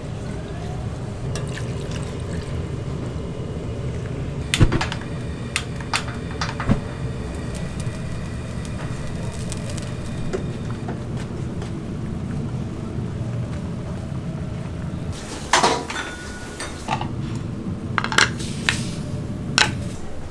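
Steady restaurant background rumble with sharp clinks of metal utensils and dishes: one loud clink about a quarter of the way in, a few lighter ones after it, and a cluster of clinks near the end.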